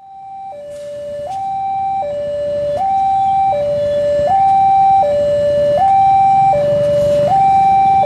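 Railway level-crossing warning alarm sounding a two-tone signal, swapping between a lower and a higher tone about every three-quarters of a second, fading in at the start. It warns that a train is approaching the crossing.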